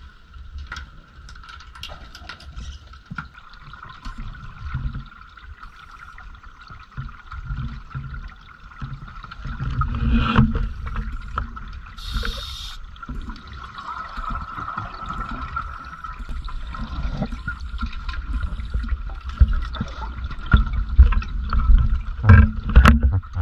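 Muffled underwater ambience of a dive: a low rumble of water moving past the camera, with a steady faint whine and scattered knocks. The rumble swells about ten seconds in and again near the end.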